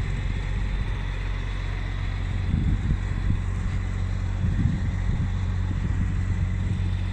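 An engine running steadily with a low hum, with a few brief low surges about two and a half and four and a half seconds in.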